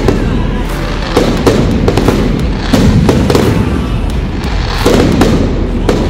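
Fireworks display: aerial shells bursting in a rapid, continuous string of bangs and crackling over a low rumble.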